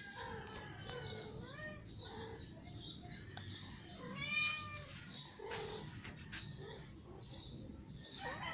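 Persian cat meowing in courtship calls: several short gliding meows, then a louder drawn-out one a little past halfway, with high chirps repeating faintly underneath.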